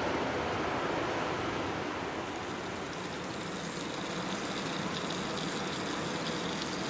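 Fast river rapids rushing, a steady, even roar of water.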